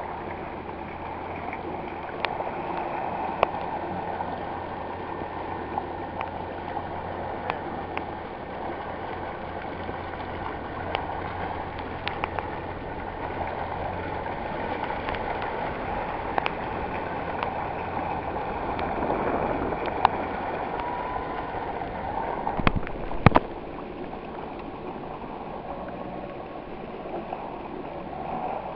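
Water lapping and gurgling around a drifting Yamaha WaveRunner, over the low steady hum of its idling engine, which fades about halfway through. Scattered sharp clicks, with two louder knocks about two-thirds of the way in.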